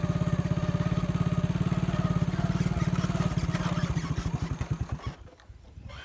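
Small motorcycle engine running with a fast, even exhaust beat; the beat slows toward the end and stops about five seconds in.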